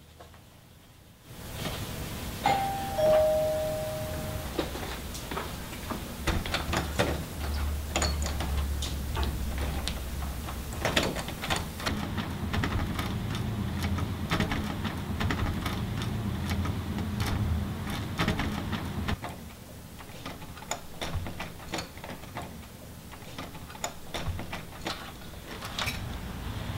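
Two-note doorbell chime about two and a half seconds in: a short higher note falling to a longer, lower one. Scattered clicks and knocks follow.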